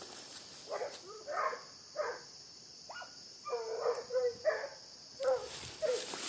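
Hunting dog baying on the trail of an armadillo, about ten barks in irregular groups over some five seconds.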